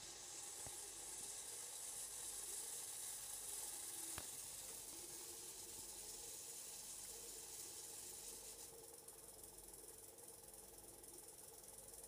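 Hoover Logic washing machine taking in water through its inlet valve: a steady faint hiss that eases off about nine seconds in.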